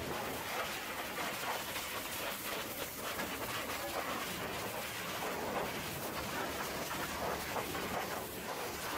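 Pressure washer jet spraying against a dump truck's steel chassis and toolbox: a steady hiss of high-pressure water with an uneven, spattering texture as the jet moves over the metal.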